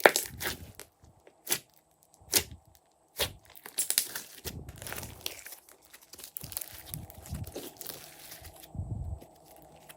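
Glossy slime being pressed, stretched and folded by hand: sticky pops, crackles and squelches, with a few sharp pops in the first few seconds and softer squishing later.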